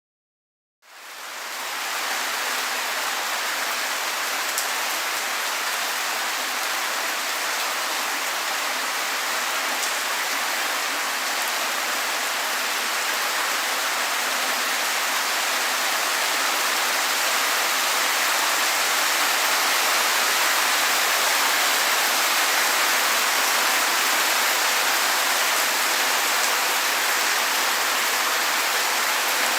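Heavy rain falling steadily on streets, a dense even hiss of drops. It fades in over the first second or two, then holds steady.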